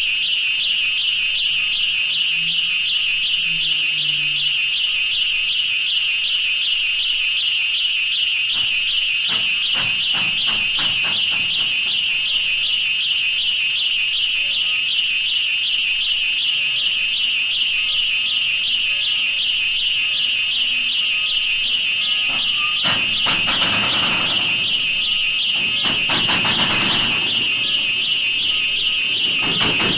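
A continuous high-pitched, alarm-like tone with a fast flutter. A run of rapid clicks comes about nine to eleven seconds in, and rushing noise swells up under the tone twice near the end.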